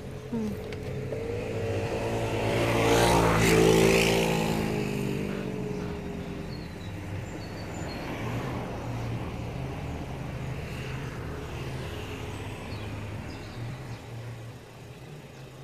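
A motor vehicle passes close by, getting louder to a peak about three to four seconds in, then dropping in pitch as it moves away. A steady low engine hum continues underneath.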